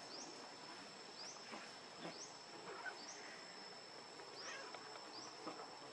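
Steady high-pitched insect drone with a short rising chirp repeated about once a second.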